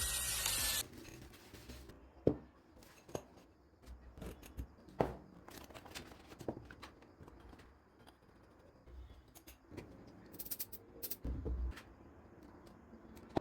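A power tool running with a steady whine, cutting off about a second in; then scattered light knocks, clicks and scrapes.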